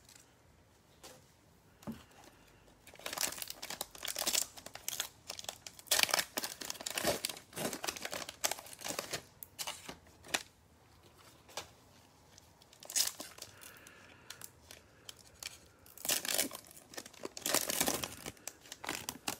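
Plastic cello wrapping of Panini Mosaic football card packs being torn open and crinkled by hands in gloves. It comes in bursts of rustling and tearing, busiest from about three seconds in, then after a lull a few more tears and crinkles near the end.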